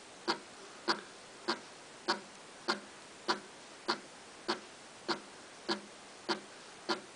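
Water drops falling one by one from a syringe needle into a bowl of water, each landing as a short, sharp plink. The plinks come at an even rate of just under two a second, paced by a stepper-motor-driven coolant pump set to a high flow rate.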